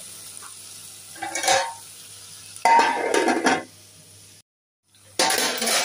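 A metal spoon scraping in an aluminium pot of dry minced beef, and the pot's metal lid being put on, metal clinking and clattering on metal in a few separate bursts. The sound breaks off briefly near the end, then another clatter starts.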